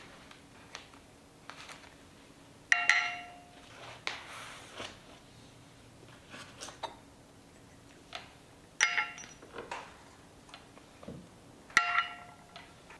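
Small porcelain tea cups clinking as they are handled and set down on a tea tray: three sharp, ringing clinks a few seconds apart, with softer taps between.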